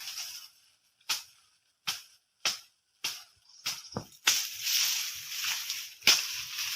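A blade chopping into a banana plant's soft trunk: about nine sharp strokes, spaced half a second to a second apart. From about four seconds in a steady rustling hiss runs under the last strokes.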